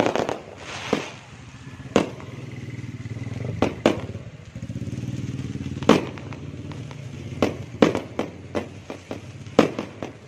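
Aerial fireworks going off overhead: sharp bangs and crackles at irregular intervals, coming thick and fast in the last few seconds. A motorcycle engine idles close by under the bangs through the middle of the stretch.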